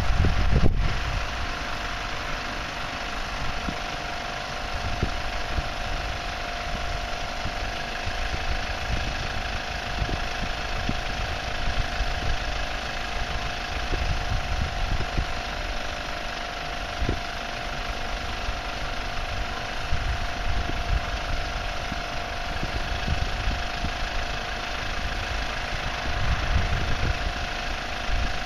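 Twin 12V air compressors running steadily with an even drone, pumping up a Karsten 350 inflatable tent's air beams. Wind buffets the microphone in gusts, and there is a single knock about a second in.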